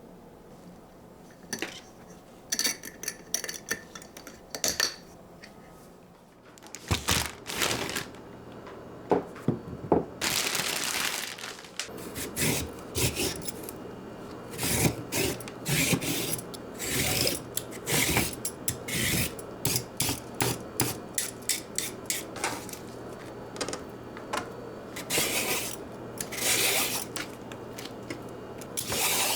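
Kitchen handling sounds: a run of clinks, taps and scrapes of dishes and utensils. There are a few ringing clinks in the first five seconds and a rushing noise lasting over a second about ten seconds in. A low steady hum comes in about seven seconds in.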